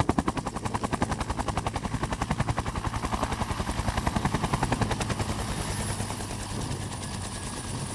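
Bell UH-1 Huey helicopter turning its two-bladed main rotor on the ground, the blades beating about ten times a second. The beat grows fainter in the second half.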